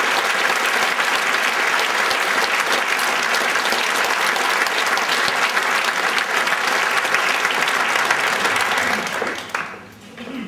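Audience applauding steadily, dying away about nine and a half seconds in.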